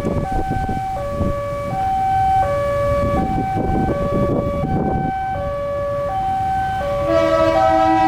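A two-tone hi-lo siren alternating steadily between a low and a higher note, each held for well under a second. About seven seconds in, a deeper held horn chord joins it: the horn of the CC 201 diesel locomotive.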